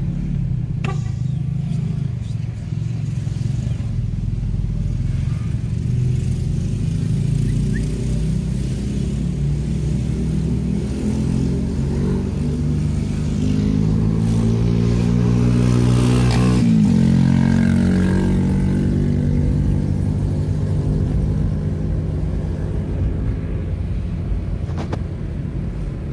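Car engine heard from inside the cabin, running under load up a climbing road. Its pitch rises for a few seconds past the middle, then drops sharply about 17 seconds in.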